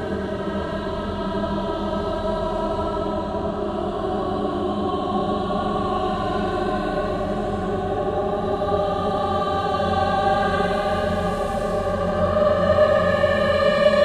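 Choir singing long, slow, held notes in an eerie horror-style arrangement, swelling louder about twelve seconds in.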